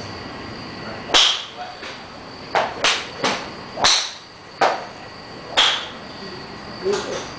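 Golf clubs striking balls on a driving range: about nine sharp, cracking hits at uneven intervals, some in quick pairs, over a steady background hiss.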